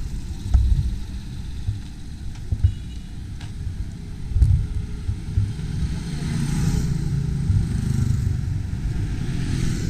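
Motor vehicle engine running, with wind rumbling on the microphone; the engine sound grows steadier and a little louder about two-thirds of the way in.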